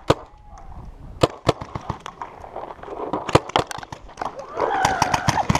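Compressed-air paintball markers firing: about a dozen sharp single pops at irregular spacing, several in quick succession around three to four seconds in.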